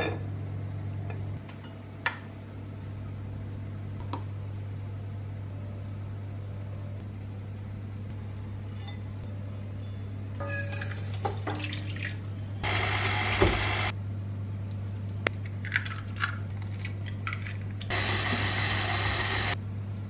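Baking preparation: melted butter scraped from a pan with a spatula, then granulated sugar poured from a metal measuring cup into a bowl in three hissing pours about ten, thirteen and eighteen seconds in. Light clinks of utensils come through over a steady low hum.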